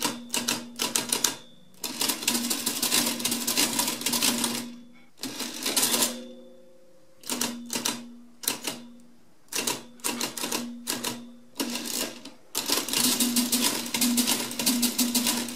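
Facit electromechanical calculator being keyed in and then working: a few sharp key clicks, then its motor-driven mechanism clattering in rapid runs of ticks over a steady motor hum. The runs stop and start several times, with the longest near the end, as it steps through repeated cycles to square a number.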